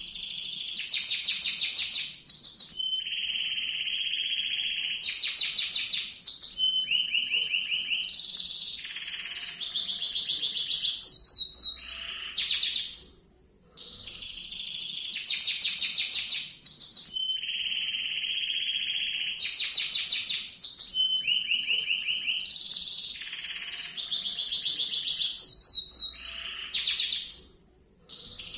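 Domestic canary singing a long rolling song of fast trills and held ringing notes. The same run of about 13 seconds plays twice, each ending in a brief break.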